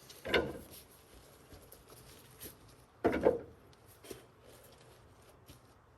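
Two dull wooden knocks, about three seconds apart, as heavy wet milled cedar slabs are set down and shifted against each other.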